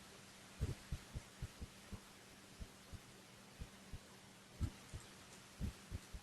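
Muffled computer keyboard keystrokes and mouse clicks, irregular low taps about two a second, over a steady low electrical hum.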